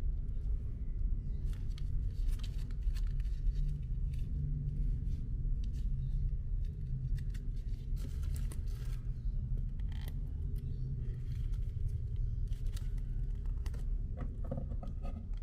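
Clear plastic knife packaging crinkling and crackling as hands handle and pull at it, in scattered clusters of crackles, over a steady low rumble.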